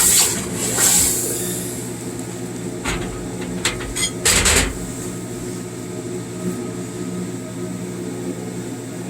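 Steady electrical hum from the arc welding machine sitting idle, with a few short knocks and scrapes from handling the metal, the loudest about four seconds in.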